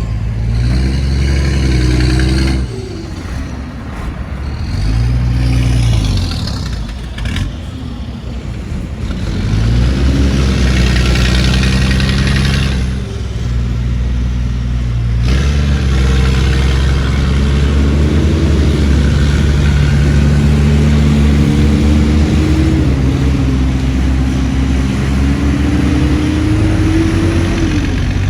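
Heavy construction machine's diesel engine revving up and down in several short surges, then running hard and steady for the last dozen seconds.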